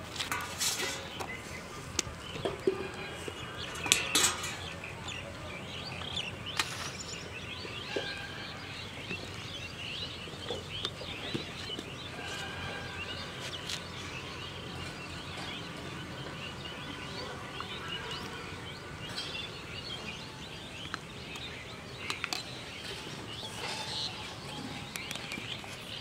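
Small birds chirping and calling all through, with a few sharp knocks in the first seven seconds as a steel plate is set down and handled.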